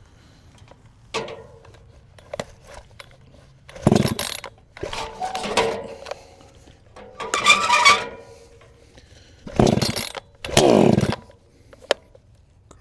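Proyama chainsaw's starter rope yanked several times, each pull a loud rasping whir, without the engine catching, between small clicks of handling the saw.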